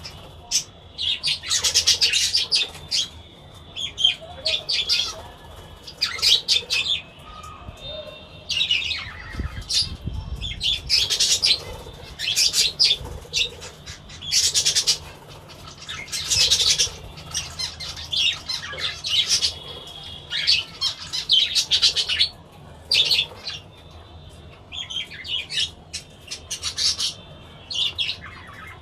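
Budgerigars chattering and squawking in short, busy bursts, one after another with brief pauses.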